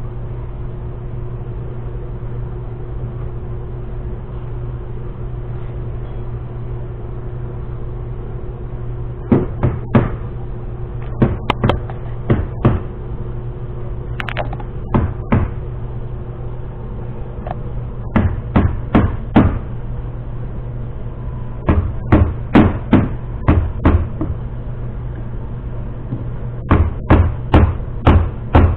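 Rubber mallet tapping the rubber edge trim down onto the top edge of a UTV windshield: quick knocks in bursts of several strokes with short pauses between, starting about a third of the way in, over a steady background hum.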